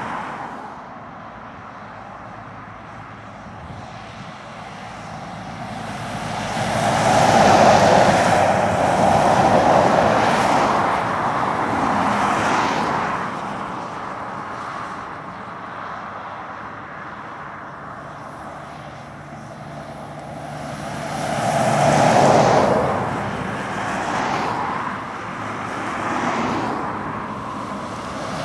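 Road traffic passing on a main road: articulated lorries and cars go by one after another, the engine and tyre noise swelling as each passes. It is loudest about seven to thirteen seconds in and again about twenty-two seconds in.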